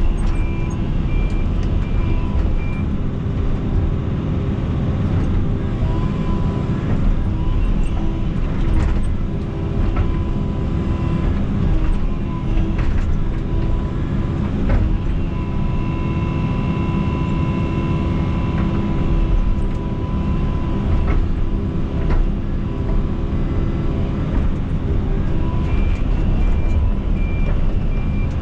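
Excavator's diesel engine running under load while it digs, with a hydraulic whine that rises in and out and occasional knocks. A short run of high beeps sounds near the start and again near the end.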